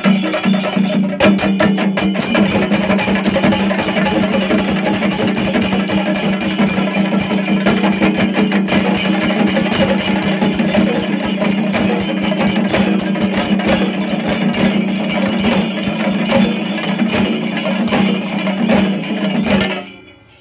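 Shinkari melam ensemble playing: chenda drums beaten with sticks in fast, dense rolls together with clashing ilathalam cymbals, a loud continuous rhythm that stops abruptly near the end.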